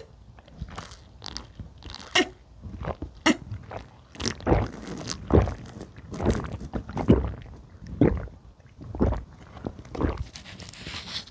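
A person gulping down milk from a small carton, swallowing about once a second, then sucking from a spouted drink pouch near the end.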